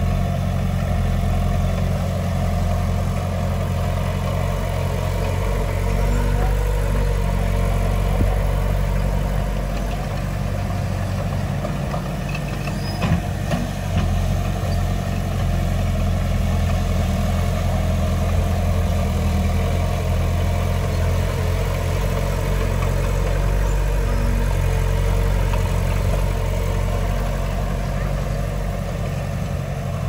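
Heavy diesel engine of earthmoving machinery, a bulldozer or dump truck, running steadily at a low, even pitch, with a few brief knocks about halfway through.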